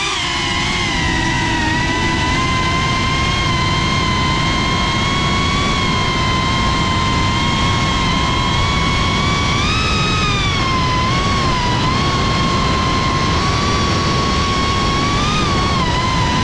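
FPV quadcopter's motors and propellers whining steadily, the pitch swelling and dipping with throttle about ten seconds in and again near the end, over a low rushing noise.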